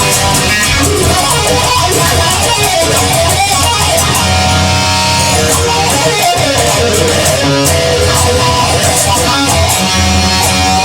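Instrumental break in a rock song: guitar playing over a steady beat, with no vocals.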